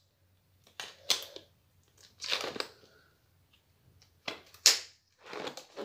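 Disposable gloves being pulled onto the hands, a series of short crinkling and snapping sounds with pauses between them, the sharpest near the middle and towards the end.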